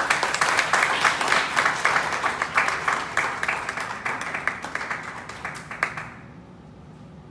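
Audience applauding: many hands clapping at once, thinning out and stopping about six seconds in.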